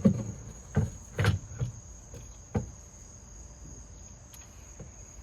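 Five short knocks and clicks in the first few seconds from handling the MINI's rear window glass and regulator in the door. Under them, crickets trill steadily in a thin high tone.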